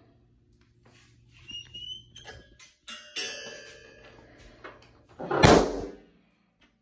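A large, thin clear plastic-film balloon squeaking as it is handled, with a short rising squeak and several high squeaks. About five seconds in there is a loud burst of noise lasting about half a second.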